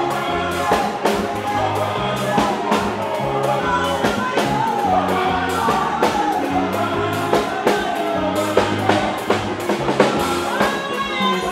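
Live gospel music: a band with drum kit, bass guitar and keyboard plays a steady beat and bass line while a singer sings over it.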